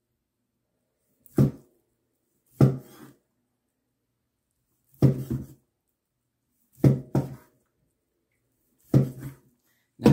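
Cleaver slicing through smoked brisket, the blade knocking down on the wooden cutting board at the end of each cut: about six sharp knocks at uneven intervals, two of them close together past the middle.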